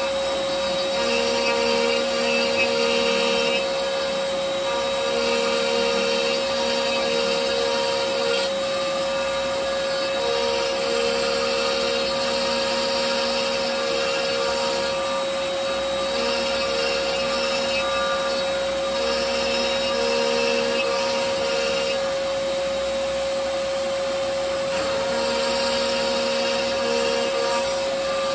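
CNC router spindle running with a steady high whine as its bit mills the maze channels into a wood sheet, the cutting noise swelling and dropping every few seconds as the bit moves along the path. Dust extraction draws through the brush dust shoe underneath it.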